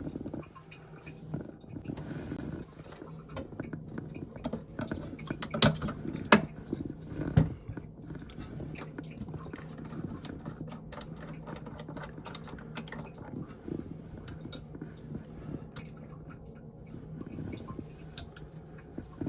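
Scattered small plastic clicks and knocks of parts being handled in a toilet tank, with three louder knocks between about five and a half and seven and a half seconds in, over a steady low hum.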